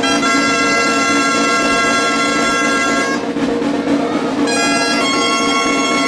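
Shrill reed pipes of the gaita or shawm type playing a melody in held notes. They break off for about a second and a half, three seconds in, then carry on.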